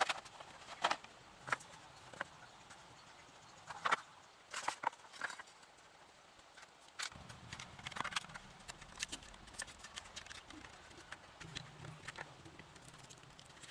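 Irregular short knocks and clicks. Several sharp ones come in the first five seconds, with another loud one about eight seconds in, then lighter, quicker ticking.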